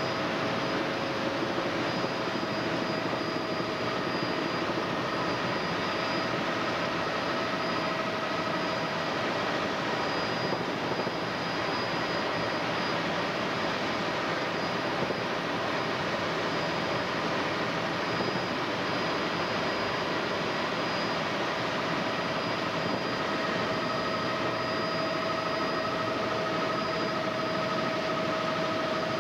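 Helicopter in flight, heard from inside the cabin: an even, constant rush of engine and rotor noise with a few steady whining tones held over it.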